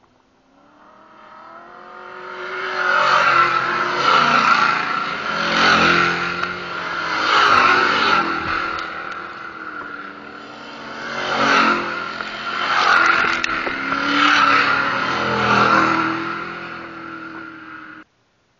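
Race car's V8 engine on a dirt track, growing louder as it approaches, then revving up and falling back several times as the throttle is worked, with a steady high whine alongside. The sound cuts off suddenly near the end.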